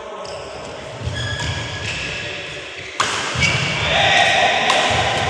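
Badminton rally: racket strikes on the shuttlecock, the sharpest and loudest about three seconds in, with fainter hits around it.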